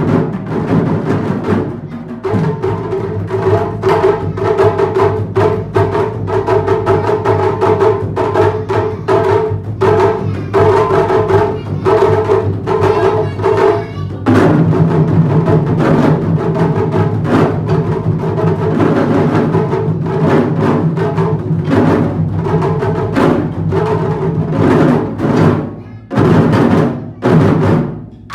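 Children's traditional Japanese drum ensemble playing rapid, dense drum strikes over a sustained held-tone accompaniment. About halfway through, the accompaniment shifts to a new, lower held tone.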